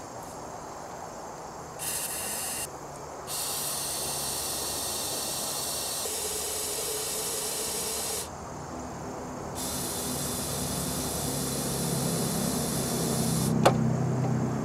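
Aerosol lubricant hissing out in three sprays into the spark plug holes of a Chevy 305 V8 marine engine, oiling cylinders that have not turned over in years before it is cranked: a short spray about two seconds in, then two long ones of about five and four seconds, each starting and stopping sharply. A click near the end, over a low hum that grows louder in the last few seconds.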